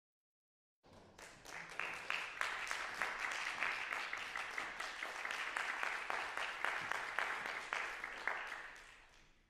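Audience applauding. The clapping starts about a second in, builds quickly to a steady patter of many hands, and fades out near the end.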